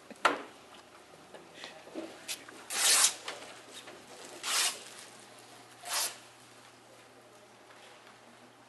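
Plastic sheeting being handled: a sharp click near the start, then three short swishing rustles about a second and a half apart, the first the loudest.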